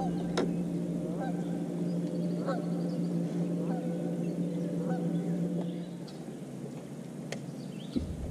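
Geese honking repeatedly over the water, over a steady low hum that stops about six seconds in.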